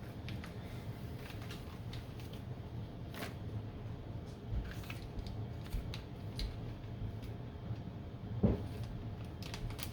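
Scattered small clicks and taps of electronic parts and tools being handled on a workbench, with one louder knock about eight and a half seconds in, over a steady low hum.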